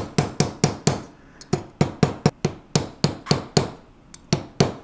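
Rapid light taps of a mallet on a wooden dapping punch, about four a second with two short pauses, setting a tube rivet through a pendant on a steel bench block. The strikes close the rivet's flared edge down so it is tight and does not rotate.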